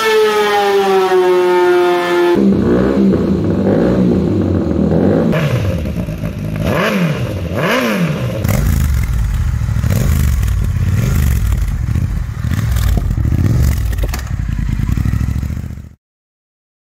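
Motorcycle engines run on a dyno in a string of quick cuts. The first winds down from high revs, the next rev up and down in sharp blips, and the last keeps running until the sound cuts off suddenly near the end.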